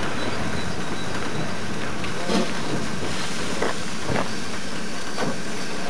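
Train on the rail line: a steady hiss with a few short knocks or clanks at uneven intervals.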